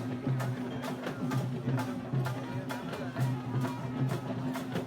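Kawadi drumming: quick, sharp drum strokes several times a second over a steady low droning tone.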